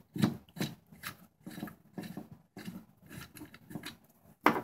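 A hex nut being spun off the threaded crankshaft end of a two-cycle leaf blower by hand, giving irregular small metallic clicks and scrapes as it turns, with a louder knock near the end.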